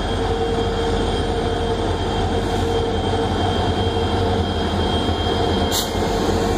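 EMD WDG4-class diesel-electric locomotives working hard as they pass close by. Their 16-cylinder two-stroke engines give a heavy, steady rumble with a high steady whine on top.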